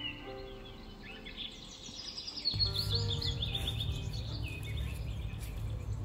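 Many small birds chirping and singing over soft music with slow sustained notes. About halfway in, a low steady rumble comes in suddenly and stays.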